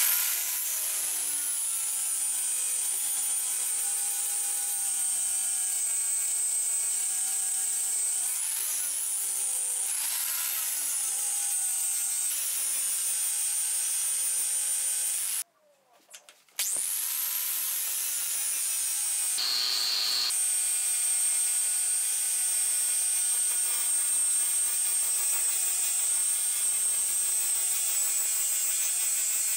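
Angle grinder with an abrasive disc running at a steady high whine as it grinds the cut end face of a steel chain-link bar bright, the pitch sagging and recovering as it is pressed on. It cuts out briefly about halfway and runs back up to speed.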